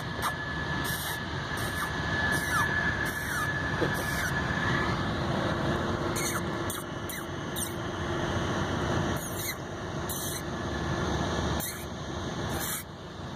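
Ground squirrel giving a run of short, high-pitched squeaks, irregular at about one or two a second, over steady background noise.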